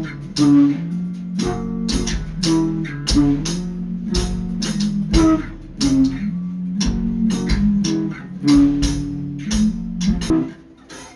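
Background music: bass and guitar over a steady beat, dropping away near the end.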